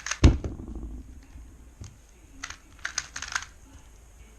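YJ MGC 2x2 V2 speedcube being turned rapidly, a fast run of plastic clicks that ends with a heavy thump about a quarter second in. A second burst of quick turning clicks comes about two and a half seconds in and lasts about a second.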